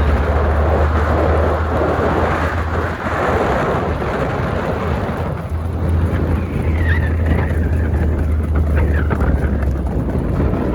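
Loud, steady rumbling noise of wind buffeting the microphone, with a rushing hiss and a brief lull about three seconds in.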